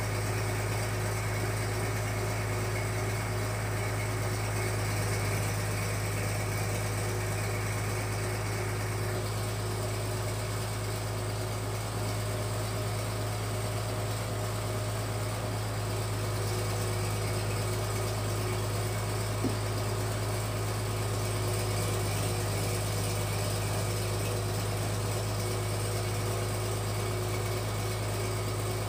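Fish-feed pellet machine running steadily under load, a constant low hum as it extrudes the feed mash through its die in strands. A single faint click about two-thirds of the way through.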